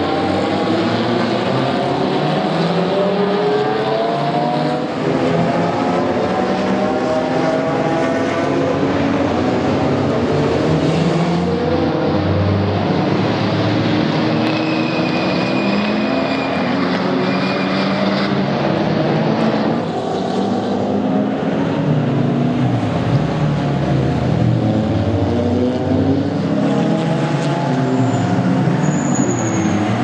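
Several racing car engines lapping a circuit, overlapping, each repeatedly revving up as it accelerates out of a corner and dropping back as it shifts or brakes.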